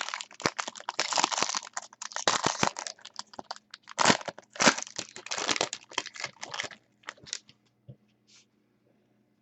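Trading card packaging crinkling and tearing in quick, irregular rustles and snaps as the cards are unwrapped; the handling stops about seven seconds in.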